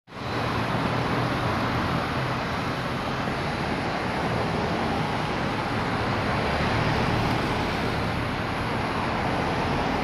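Steady, even rushing noise with a low rumble beneath it, unchanging throughout.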